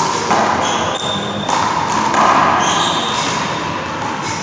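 A rubber handball smacks off the wall and floor several times during play, with sneakers squeaking on the court floor.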